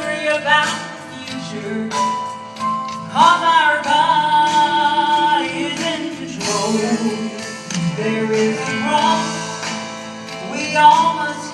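Gospel vocal trio, men's and women's voices, singing in harmony with musical accompaniment.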